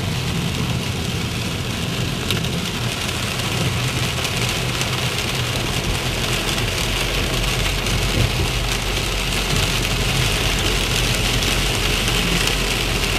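Torrential rain falling on a moving car, heard from inside the cabin, with the engine's steady low hum underneath.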